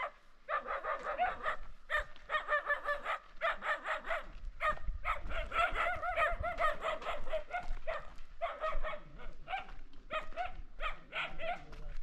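A dog yipping: high-pitched yelps in quick runs, with short pauses between the runs.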